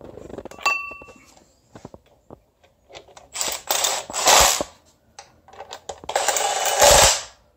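Milwaukee cordless driver running in two bursts of about a second each, about three and six seconds in, driving the bolts that fasten the starter motor to the engine's adapter plate. A metal clink with a short ring comes just under a second in.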